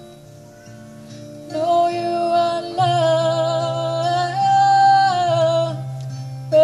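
Live Kundalini mantra music: a woman singing long, wavering held notes over a steady harmonium drone and acoustic guitar. The voice comes in about a second and a half in and holds until near the end.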